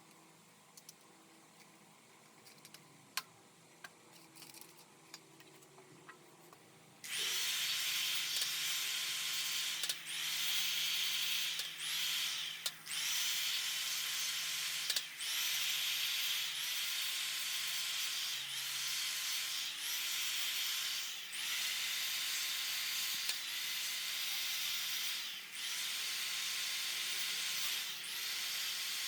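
A workshop tool running with a loud hiss in long bursts, starting about seven seconds in and cut off briefly about eight times; before it, a few light clicks of handling.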